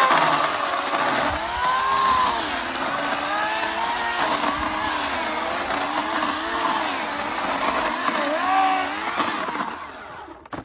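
Homelite 14-inch 9-amp electric chainsaw running and cutting through a fallen locust limb, its motor pitch sagging and recovering several times as the chain bites into the wood. The motor winds down and stops near the end.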